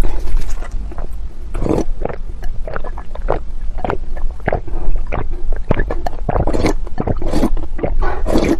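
Slurping and gulping as a person drinks red broth straight from a large bowl, in irregular sips and swallows.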